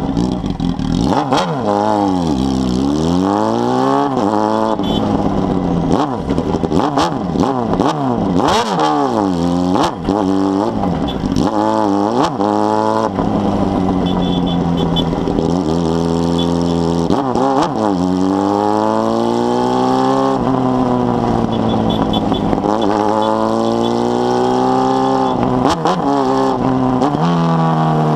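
Honda Hornet 600's inline-four engine, carbureted and breathing through an aftermarket 4-into-1 exhaust, revving up through the gears. Its pitch climbs, falls sharply at each shift or lift-off and climbs again, over and over, while the bike is ridden through traffic.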